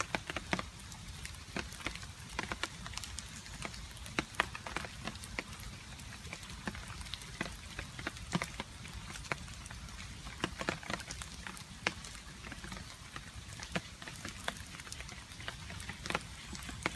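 Water drops falling irregularly, a few sharp drips a second, over a steady hiss of light rain.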